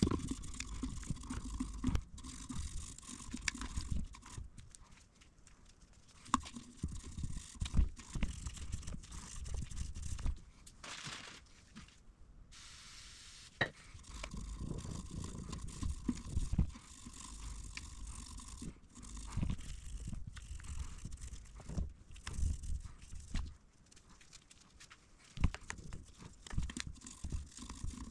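Gloved hands working in a motorcycle engine's intake ports: irregular scraping and rustling with scattered light clicks and soft low bumps.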